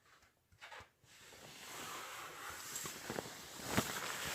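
Rustling and shuffling that builds from about a second in, with a few light knocks near the end.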